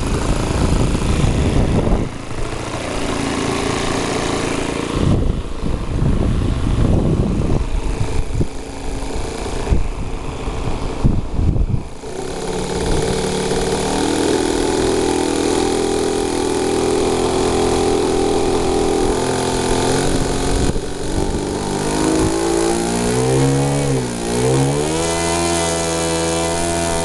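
Engine of a Falcon 56 RC model airplane. For about the first twelve seconds the sound is rough and uneven. It then settles into steady running, drops briefly in pitch near the end and climbs back up, as with a throttle change.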